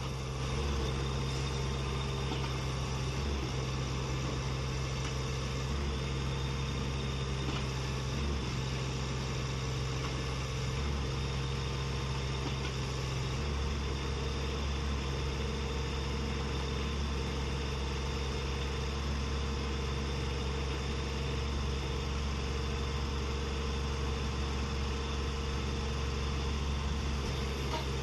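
Small excavator's Kubota engine running steadily at a constant speed, a low steady hum with a slight change in tone about halfway through.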